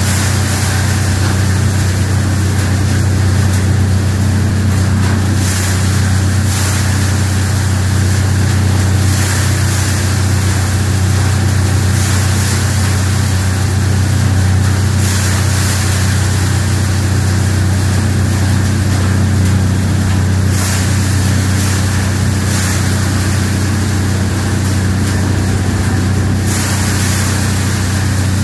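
Silk cotton (kapok) cleaning machine running: an electric motor belt-driving a rotating drum. It makes a loud, steady drone with a strong low hum, and brief hissing surges every few seconds.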